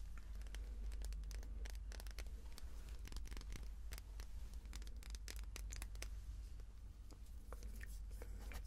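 Fingernails tapping and scratching over the surface of a small round cosmetic item held close to the microphone: a quick, irregular run of small clicks and scratches.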